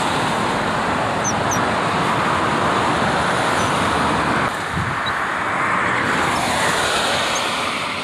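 Road traffic passing close by, a steady rush of tyre and engine noise that dips about halfway through, swells again and then fades near the end.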